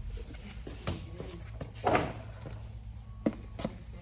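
A few scattered light clicks and knocks from parts being handled during reassembly, the loudest about two seconds in.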